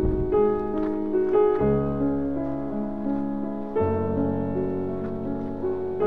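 Background instrumental music of slow, held keyboard chords, with a deeper chord coming in about one and a half seconds in and again near four seconds.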